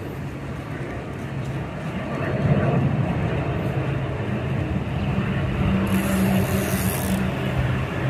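Low rumble of an airplane passing overhead, swelling a little about two and a half seconds in, with a steady low hum; a brief high hiss lasts about a second near the end.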